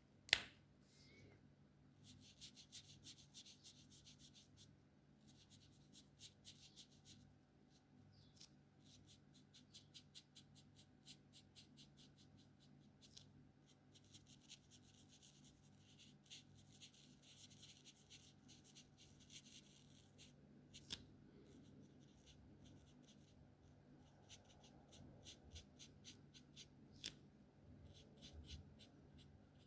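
Alcohol marker's felt tip scratching across paper in many quick short strokes, faint, with a sharp click just after the start and two smaller clicks later on.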